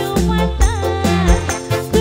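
Music: a song with deep bass notes, a steady drum beat about three strokes a second, and a wavering melody line above.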